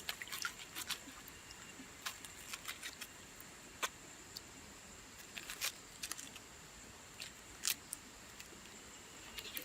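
Scattered light clicks and taps of hands handling and working banana plant material, a few sharper ones about four, six and eight seconds in, over a faint steady high-pitched tone.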